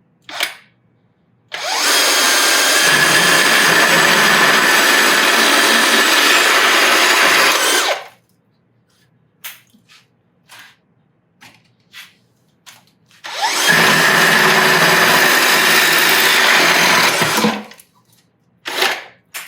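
A drill on speed 2 driving a 2-1/8-inch carbide-toothed hole saw through an old hard 2x6, cutting steadily for about six seconds. After a few short knocks it cuts a second hole for about four seconds.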